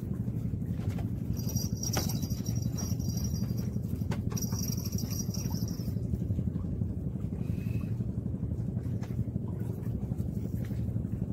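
A fishing reel's drag whining as a fish pulls line off, in two stretches with a short break, from about one and a half seconds in to about six seconds in. A steady low rumble lies underneath throughout.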